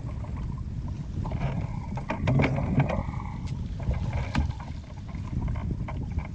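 Wind rumbling on the microphone on a small open boat at sea, with knocks and splashing at the boat's side as a gaffed tuna is held and hauled in. The loudest cluster of knocks comes about two and a half seconds in, with another sharp knock just past four seconds.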